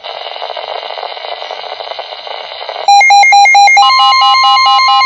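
Emergency alert broadcast off a radio: static hiss, then about three seconds in a loud pulsing alarm tone starts. About a second later a steady tone joins it.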